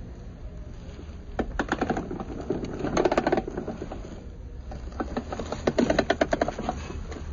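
Rapid hard clicking and clattering in two bursts of about two seconds each, the second starting about five seconds in.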